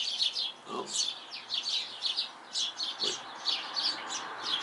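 Small songbirds chirping without pause: a rapid run of short high chirps, several a second. A brief low falling sound comes in about three quarters of a second in.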